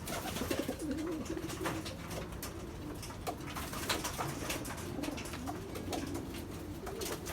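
Pigeons cooing in a loft, low wavering coos repeating over and over, with scattered light clicks and taps among them.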